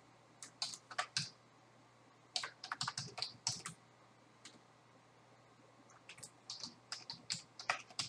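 Typing on a computer keyboard: runs of quick keystrokes, with a pause of about two seconds in the middle before a final run near the end.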